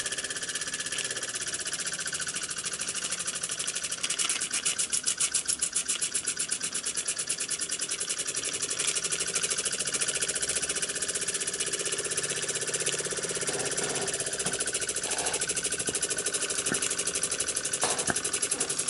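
Small spirit-fired model steam engine with a copper boiler running under steam, a fast, even chuffing beat that grows louder about four seconds in. The engine is still priming a little, carrying some water over with the steam.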